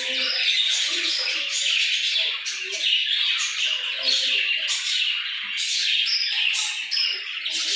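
Many birds chirping and squawking at once, a dense, continuous chatter of short overlapping calls.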